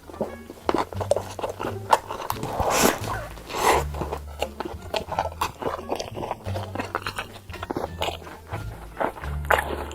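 Close-up eating: someone biting and chewing food, with many short sharp clicks of bites and chewing, over background music with a steady bass line.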